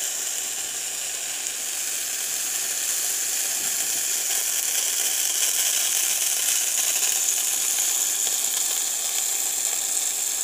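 Potstickers sizzling in oil in a non-stick frying pan as the last of the added water boils off. A steady, high sizzle.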